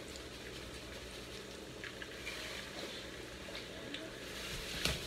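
Sausages frying in a pan, a faint steady sizzle with a few small ticks, and one sharp click near the end.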